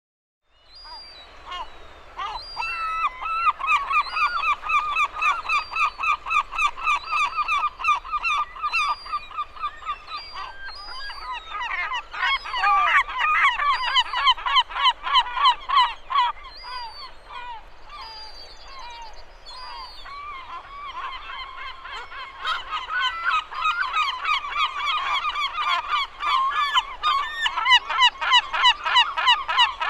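Seagull calling close up: long runs of short, rapid repeated cries, several a second. The calls get quieter for a few seconds about two-thirds of the way through, then grow loud again.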